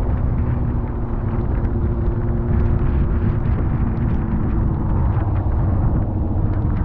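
Motorcycle engine running steadily on the move in the rain, under heavy wind rumble on the microphone and the hiss of tyres on the wet road.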